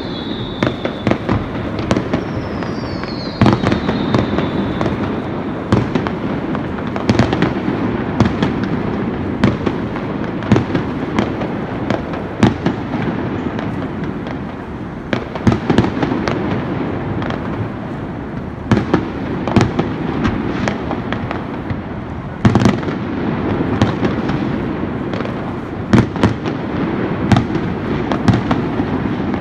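Fireworks going off nonstop: steady crackling with frequent sharp bangs throughout. Two whistles fall in pitch within the first few seconds.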